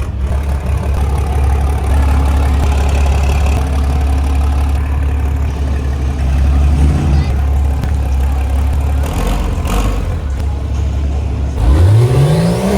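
Truck engine running with a deep, steady rumble, then revved hard near the end, its pitch climbing quickly and holding high.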